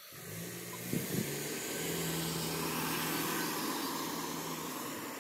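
A car driving past on the street, its tyre and engine noise swelling to a peak midway and easing off toward the end.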